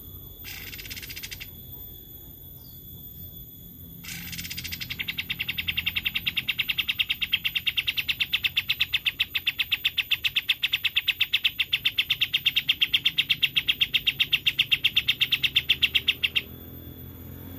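Pied triller (kapas tembak) song: a short rough note, then from about four seconds in a long, rapid, even trill that grows louder and breaks off abruptly near the end.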